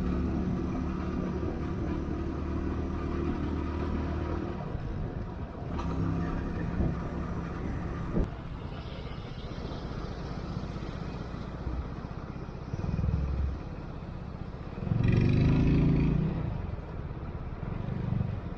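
Leoncino 250 single-cylinder motorcycle engine running while riding, steady at first, then its note shifting, with a louder rev about fifteen seconds in.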